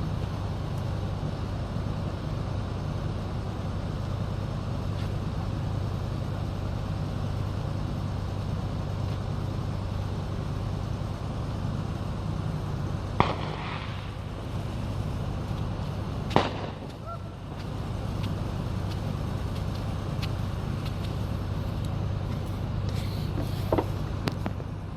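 Steady low hum and rumble of outdoor background noise, broken midway by two sharp bangs about three seconds apart and a lighter crack near the end.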